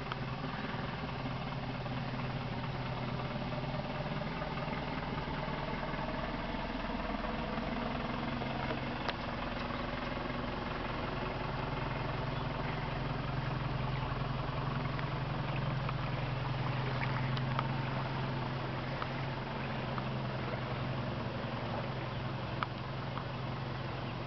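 Engine of a Nissan cab-over light truck running at low speed as it drives slowly through floodwater: a steady low hum that swells slightly midway, over a wash of water noise from the wheels, with a few faint clicks.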